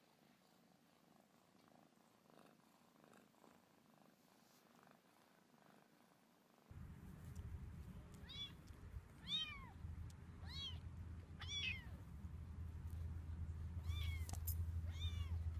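A kitten mewing: short high-pitched calls that rise and fall in pitch, about one a second, over a steady low rumble that starts about halfway in. Before that, almost silent apart from faint cat purring.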